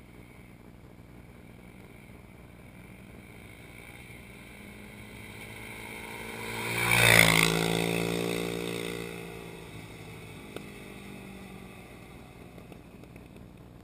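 Suzuki LT-Z400 QuadSport ATV with a Motoworks SR4 slip-on exhaust, its single-cylinder engine passing by at speed. The exhaust note builds, peaks about seven seconds in, then drops in pitch as it fades away.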